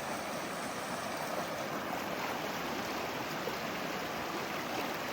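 Creek water flowing in a steady rush.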